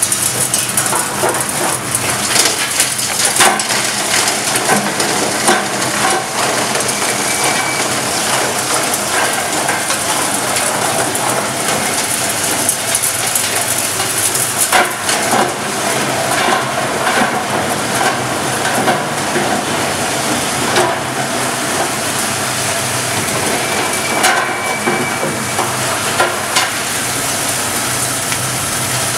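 Stainless-steel cocoa cake crusher running, breaking up chunks of pressed cocoa cake fed into its hopper: a steady grinding noise full of crackling and rattling knocks.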